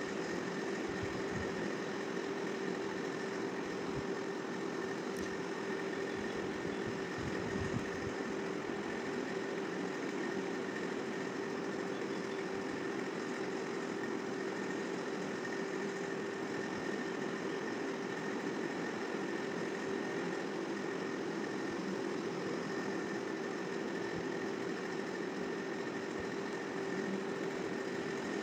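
A steady motor hum holding a constant mid-pitched tone and a fainter, higher whine.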